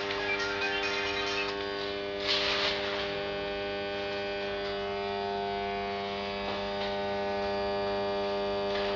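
Steady electrical mains hum with many evenly spaced overtones, with a few faint clicks in the first second and a half and a brief hiss about two and a half seconds in.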